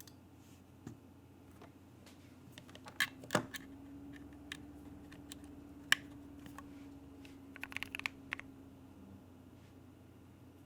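Keychron Q1 mechanical keyboard with Gateron Black Ink V2 linear switches, single keys pressed slowly and sporadically. The loudest strokes come as a pair about three seconds in, and a quick run of several keystrokes comes near eight seconds.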